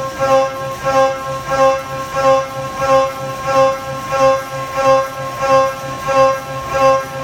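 12 mm four-flute end mill high-speed milling S355 steel plate at about 7,960 rpm on a Haas VF-2SS CNC mill: a steady high-pitched cutting whine set by the teeth striking the steel about 530 times a second. It swells and fades about three times every two seconds as the tool sweeps in and out of the cut on each pass of the high-speed toolpath.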